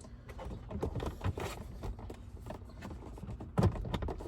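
Plastic glove box being handled and pushed into the dashboard, giving a string of small clicks and knocks as its side retainer clips are lined up with the housing, with one louder knock near the end.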